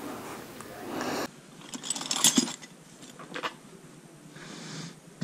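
Light clicks and rattles of a pit bike's plastic bodywork and parts being handled, with a brief soft hiss near the end.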